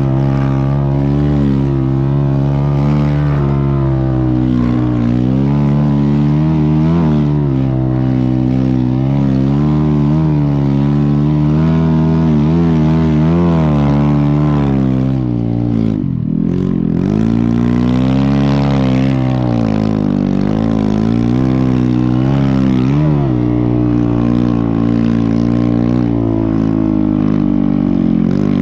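A snow bike's engine, a dirt bike on a Yeti snow-bike conversion, running hard through deep snow, its pitch rising and falling constantly with the throttle. About halfway through it drops off almost to idle for a moment, then revs back up.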